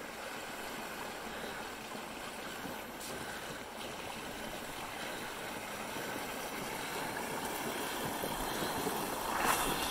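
A fat bike's wide tires pushing through shallow floodwater, a steady swishing and splashing that grows louder as the bike comes closer, swelling near the end.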